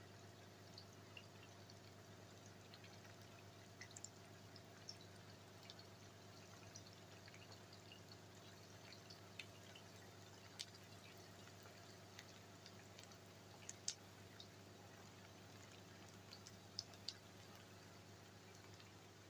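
Cauliflower florets deep-frying in oil in a cast-iron skillet: faint frying with scattered sharp pops and crackles, a few of them louder, over a low steady hum.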